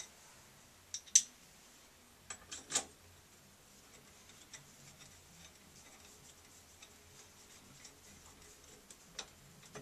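Sharp clicks and light knocks of a hand handling a Price Pfister shower valve cartridge in its wall opening. The loudest click comes about a second in and a cluster of clicks follows around three seconds in. After that come faint scattered ticks and one more click near the end.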